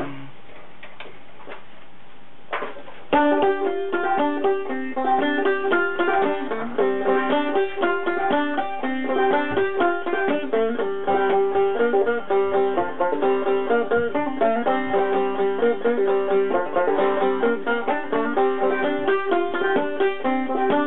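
A solo banjo, picked fast in a busy, rhythmic tune. It starts about three seconds in after a quiet stretch broken by one short knock.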